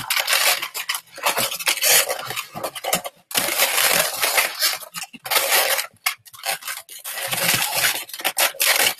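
Inflated 260 latex twisting balloons rubbing against each other in bursts as the leftover end is worked and tied into the figure's other foot.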